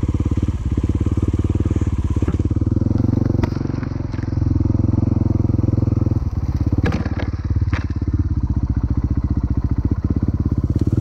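Enduro motorcycle engine running at fairly low, steady revs, easing off slightly a couple of seconds in, with a few sharp clicks and knocks over it.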